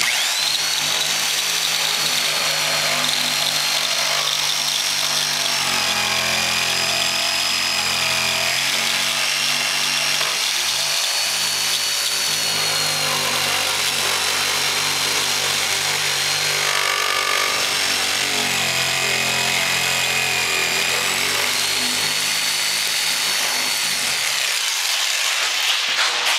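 Jigsaw cutting through a kitchen countertop along a taped cut line: a steady saw racket with a high motor whine that sags and recovers as it works, cutting off right at the end.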